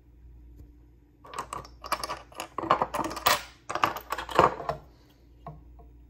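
Seashells clicking and clattering against one another and a hard surface as they are handled: a quick run of clicks for a few seconds, then two light taps near the end.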